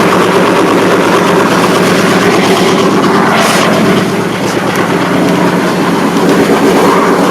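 Cammed Ford 5.0 L (302) V8 in a Ford Explorer idling steadily through its exhaust, with an even pulsing beat. It is running freshly after an oil change, with good oil pressure and no leaks.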